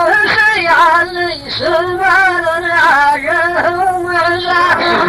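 Nabati verse of a Saudi poetic duel (muhawara) chanted in a slow, drawn-out melody: long held notes with a wavering pitch, broken by short breaths between phrases.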